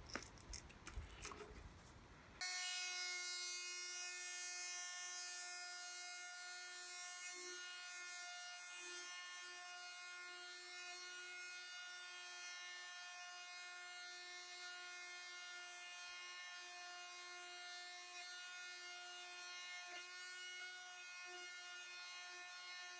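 Small electric detail sander switching on about two seconds in and running steadily with a high, even hum, sanding the wooden hull planks with 320-grit paper. Faint handling noises come before it starts.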